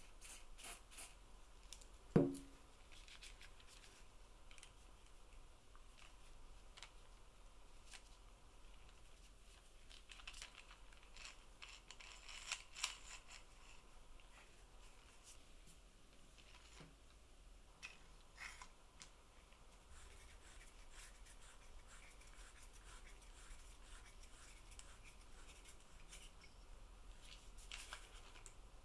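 Faint handling sounds from the small metal crank mechanism of an antique wooden hand-crank massage tool as it is lubricated and worked: scattered light clicks and scratches, with one sharp knock that rings briefly about two seconds in.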